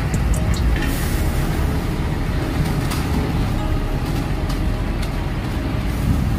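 Steady road-traffic noise of buses and cars crossing a steel truss bridge, a continuous deep rumble under a hiss.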